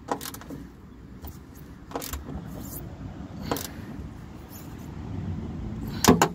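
A small metal socket turned by hand to run a screw back into a sliding van door's frame, giving scattered metal clicks and taps, with a sharp double click near the end.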